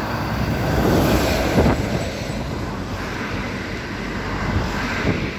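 Wind buffeting the microphone over the low rumble of a freight train approaching in the distance behind an electric locomotive.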